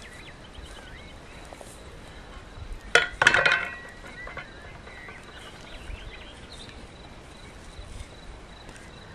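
A metal pan set down on an iron fire stand: a sharp clank about three seconds in, with a second clatter and brief metallic ringing. Faint bird chirps and a steady insect whine run underneath.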